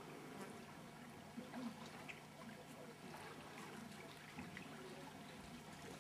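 Faint lapping and trickling of calm sea water at the shore, with a few small splashes and a steady low hum underneath.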